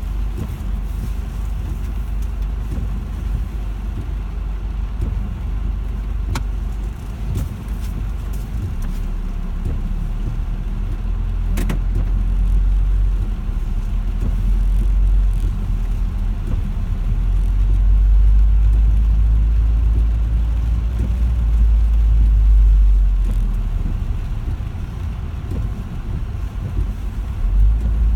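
Car driving, a continuous low rumble of engine and road noise that swells through the middle and eases near the end, with a couple of brief clicks.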